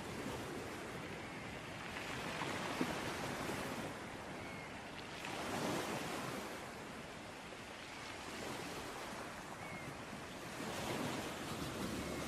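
Sea waves washing onto a beach: a steady rush of surf that swells and eases every few seconds.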